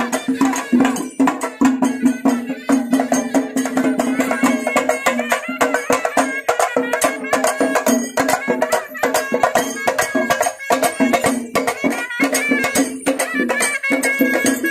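Traditional festival procession music: rapid, dense drumming with a wind instrument holding a steady low note and playing a melody above it.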